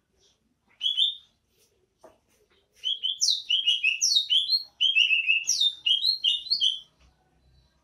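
Cucak ijo (green leafbird) of the Banyuwangi type singing its 'bebeci' song: a short two-note phrase about a second in, then two fast runs of sharp, quickly falling high notes from about three seconds in.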